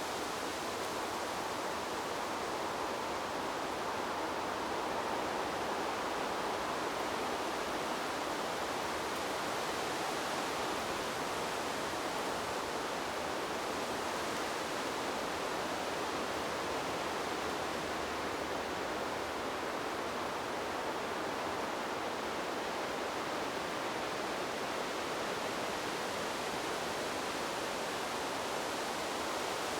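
Wind sound effect: a steady rushing whoosh of wind that swells gently and eases, with no gusts breaking sharply.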